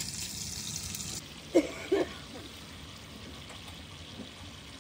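Bacon pieces sizzling in a frying pan on a camp stove, a steady hiss that turns duller about a second in. Two brief vocal sounds come at around a second and a half and two seconds.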